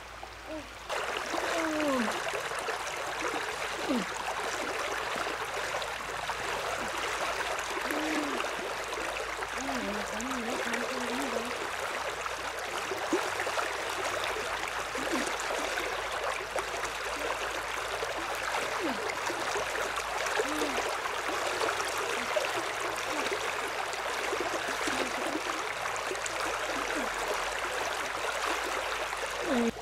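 Fast-flowing stream water rushing steadily over rocks, starting abruptly about a second in.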